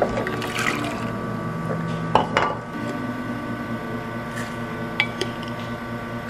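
Paper cups being handled on a wooden counter and powder spooned into them: a few sharp taps and clicks, the loudest two close together about two seconds in, over a steady hum.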